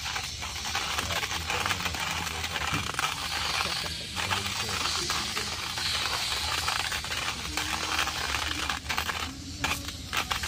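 Metal hand coffee grinder being cranked, its burrs crushing coffee beans with a steady rattling crunch that breaks off briefly about four seconds in and again near the end.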